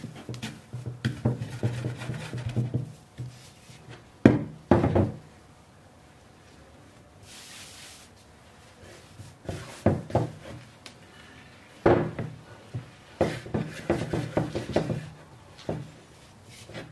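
Hands knead soft yeast dough in a wooden bowl, squishing it and knocking it against the wood, with the two loudest knocks about four seconds in. Around the middle comes a short soft hiss of flour being scattered on a wooden tabletop. After that come more dull thumps and squishing as the dough is handled on the table.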